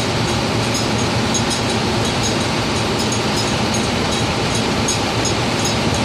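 Steady, loud machinery noise of an offshore drilling rig, a low hum under a wide rushing noise, with short high ticks about twice a second.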